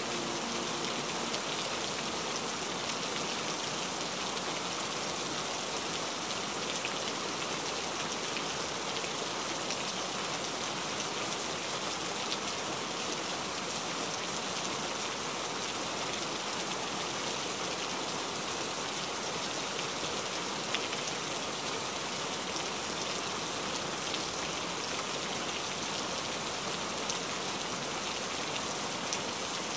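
Steady rain falling on window glass: an even hiss with scattered sharper ticks of single drops, one louder about two-thirds of the way through.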